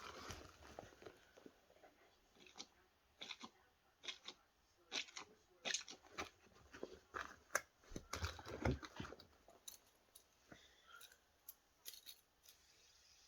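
Faint handling of small plastic fidget toys: irregular clicks, crackles and rustles, with a louder bump of handling about eight and a half seconds in.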